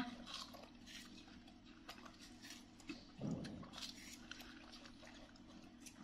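Faint wet clicks and smacks of watermelon being chewed and handled, over a faint steady low hum, with one short low voice-like sound about three seconds in.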